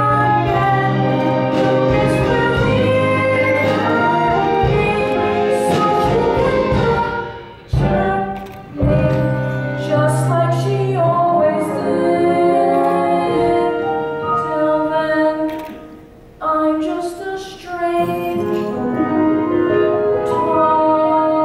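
A boy singing a solo stage song with instrumental accompaniment, the melody broken by two short pauses.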